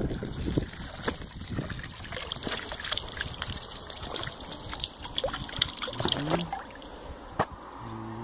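Pond water trickling and dripping out of a fine-mesh plankton net as it is lifted from the water, draining through the fabric and spattering from the net's tip in many small irregular drips.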